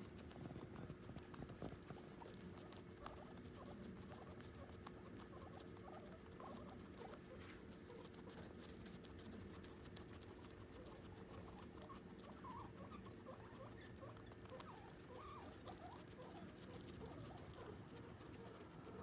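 Guinea pigs chewing hay and kale: faint, rapid crunching and nibbling clicks.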